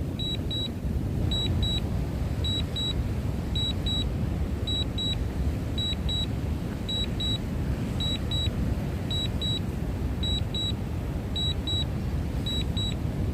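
Steady low rumble of wind on the microphone, with a pair of short high beeps repeating about once a second: an alert tone from the DJI Mini 3 Pro's controller and flight app during a windy flight.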